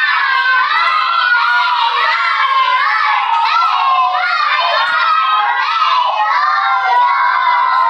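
A group of young children shouting and cheering at once, many high voices overlapping without a break.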